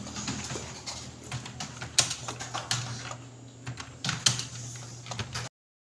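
Fast typing on computer keyboards: irregular key clicks over a steady low hum, cutting out suddenly near the end.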